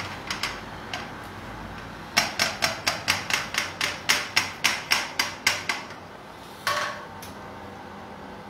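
A quick run of about fourteen sharp knocks on a frying pan, some four a second, then one more a second later, as the last of the sauce is knocked out of the pan.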